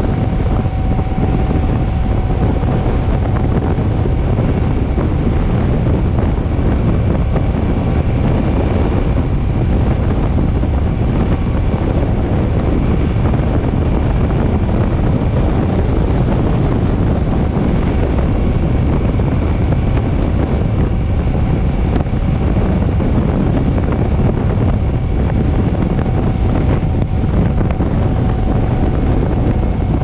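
Loud, steady wind rumble on a GoPro microphone riding a Suzuki M50 cruiser motorcycle at steady road speed on a very windy day, with a faint steady whine beneath it.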